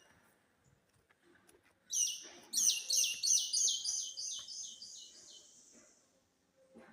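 A bird calling: from about two seconds in, a fast series of high, down-slurred notes, about four a second, that grows fainter and dies away after a few seconds.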